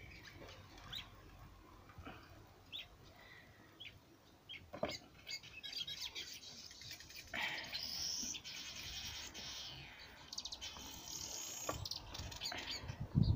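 Small birds chirping in a few bursts, with scattered faint clicks and a low thump near the end.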